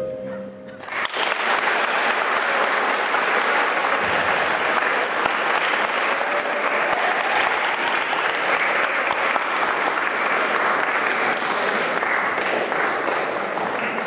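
Audience applauding steadily in a large hall. The clapping starts about a second in, just as a piece of music ends.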